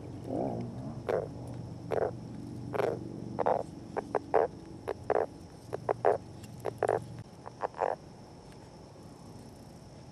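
Northern leopard frog calling: a run of short croaking notes at irregular spacing that stop about eight seconds in, over a low steady drone. This is the male's breeding call.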